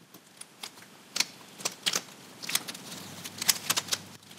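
Blue masking tape being peeled off a painted hull, giving a run of small, irregular crackles and ticks.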